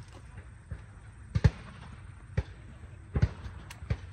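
Shotgun reports at varying distances, about five sharp bangs in four seconds, the loudest about a second and a half in.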